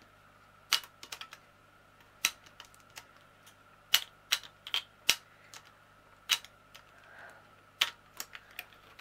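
Irregular sharp clicks and taps of plastic on plastic as resin diamond painting drills are tipped from a small bag into a clear plastic storage box compartment. A brief soft rustle of the bag about seven seconds in.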